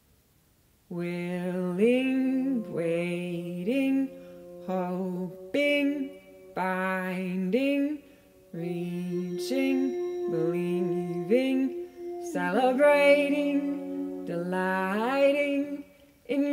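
Singing voices without clear words, in short phrases of held notes joined by upward slides, starting about a second in.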